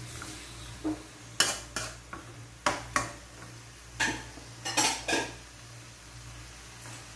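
Metal spoon scraping and clinking against a stone bowl and an aluminium wok as marinated pork is scooped into the pan, with about eight sharp knocks over the first five seconds. Light sizzling and a steady low hum run underneath.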